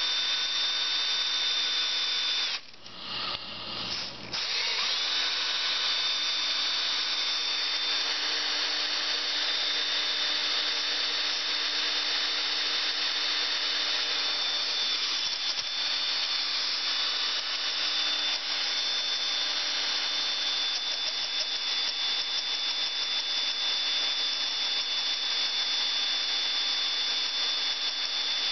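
Cordless drill running steadily with a high motor whine as it drills the head off a seized stainless steel screw in a motorcycle fairing panel. It stops briefly about three seconds in, then spins back up and runs on.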